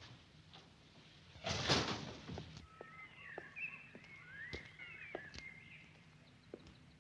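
A door swings shut with a loud rush about a second and a half in. Then a woman's heeled footsteps click on paving, about one step a second, while a bird chirps in short gliding calls in the background.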